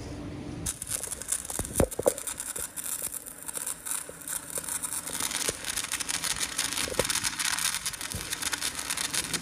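Electric welding on a truck axle: a steady crackling hiss starts about a second in, with a few sharp metal knocks.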